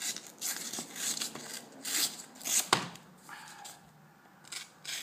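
Leatherman Skeletool knife blade cutting through material in a series of short, irregular strokes, with one sharp click a little under three seconds in.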